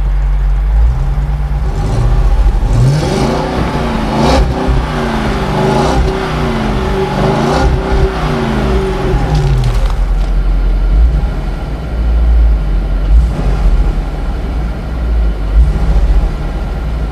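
2006 Chrysler 300C SRT8's 6.1-litre Hemi V8 running on its stock exhaust. It is revved about four times in quick succession, each rev rising and falling, then settles to a steadier run with a few short blips of the throttle.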